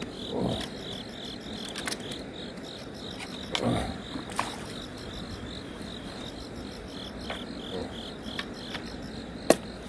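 An insect chirping steadily in an even, repeating pulse. It is joined by a couple of brief dull bumps, about half a second in and near four seconds in, scattered light clicks, and one sharp click near the end, from fishing-rod handling.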